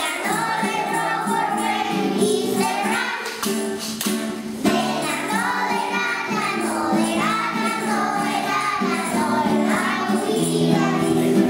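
A group of young children singing a song together over musical accompaniment with held notes and a regular jingling beat.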